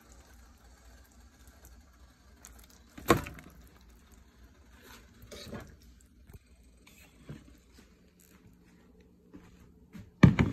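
Kitchen handling sounds: a few separate knocks and clatters of utensils and cookware. The loudest come about three seconds in and near the end, with quiet between.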